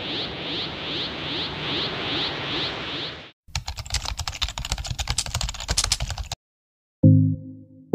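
Computer-keyboard typing sound effect: rapid key clicks for about three seconds while text is typed out. Before it, a loud rushing noise with a swish repeating about twice a second cuts off suddenly about three seconds in, and a synth note starts near the end.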